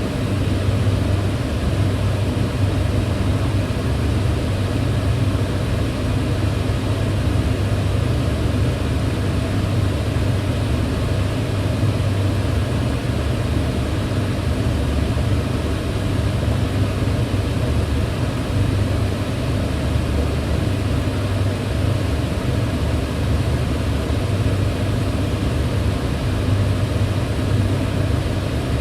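Kitchen range hood extractor fan running steadily: a constant rushing air noise with a low hum underneath.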